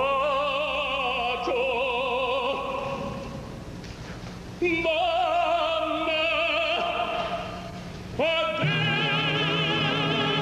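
Operatic tenor singing with orchestra, with a wide vibrato. He sings two phrases with short breaks between them. About eight and a half seconds in he takes a loud high note and holds it to the end.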